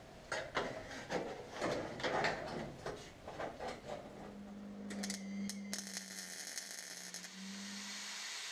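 Shop work noise: a run of knocks and clatter from tools and parts being handled, then a steady low hum from about four seconds in.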